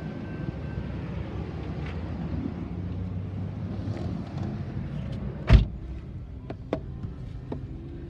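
Steady low rumble of road vehicles and idling engines, with a car door slamming shut about five and a half seconds in, followed by a few light clicks.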